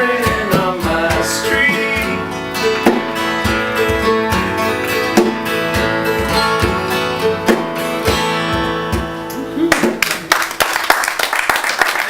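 Closing bars of a country song played on acoustic guitars, with singing in the first couple of seconds. About ten seconds in the music stops and audience applause begins.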